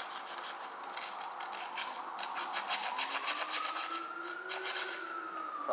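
Sandpaper rubbed back and forth by hand over the burred end of a Harley Twin Cam pinion shaft in quick, repeated rasping strokes, to clear the burr so the camshafts can slide off. A siren rises and falls in the background in the second half.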